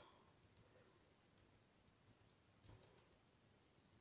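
Near silence: fingertips dabbing and smearing poster paint on a sheet of paper, faint small clicks with one slightly louder soft rub about two-thirds of the way in.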